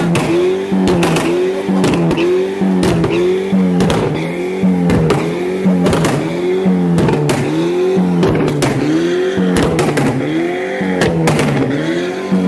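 Turbocharged Volkswagen Golf GTI engine blipped repeatedly at a standstill, about once a second, with the pitch rising and falling on each blip. Sharp exhaust pops and crackles come from the twin tailpipes between the blips, the sound of a pops-and-bangs tune.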